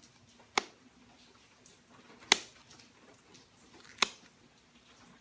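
Steel-tipped pressure flaker working the notch of a stone arrowhead: three sharp clicks, spaced roughly one and a half seconds apart, as small flakes snap off the edge under pressure.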